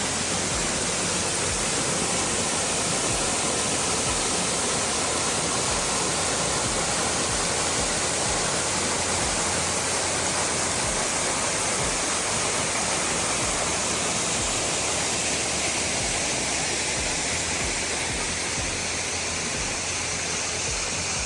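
Waterfall, very loud: a steady, even rush of falling water.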